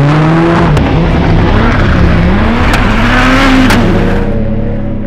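VW Polo rallycross car's engine revving hard, its pitch climbing and dropping through gear changes, with three sharp cracks among the revs. It fades near the end as the car pulls away.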